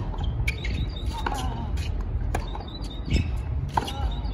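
A tennis rally on a hard court: the ball is struck by rackets and bounces, making sharp pops about every half second to second. Under them runs a steady low rumble, with a few short squeaks.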